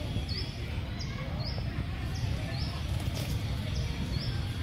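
Outdoor ambience: a steady low rumble with a short, high, rising chirp repeating about every half second to a second.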